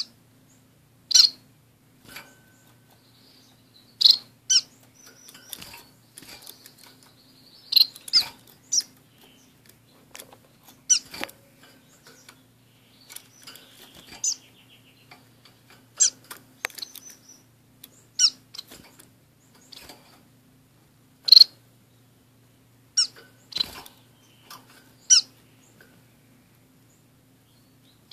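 Small pet finches (orange-cheeked waxbills and a society finch) giving short, sharp high-pitched call notes, one every second or two at irregular intervals.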